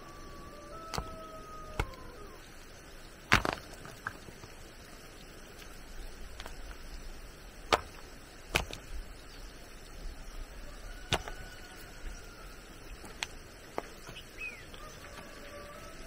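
Hand tool chopping, about eight sharp strikes at irregular intervals of one to three seconds, the loudest about three seconds in.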